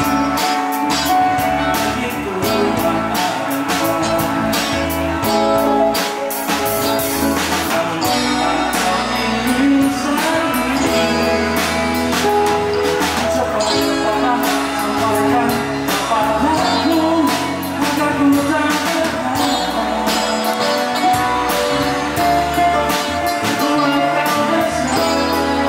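Live band playing with a male lead vocal over electric guitars, keyboards and a drum kit.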